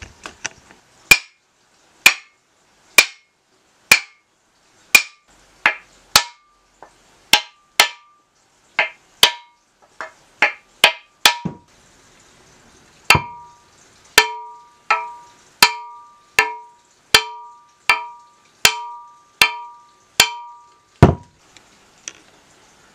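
Repeated blows seating a steel mattock head on its new wooden handle, each a sharp knock with a short metallic ring from the head. About thirty blows, roughly one a second and quickening at first, then after a brief pause a steadier run with a clearer ring, ending on a heavier, duller thud.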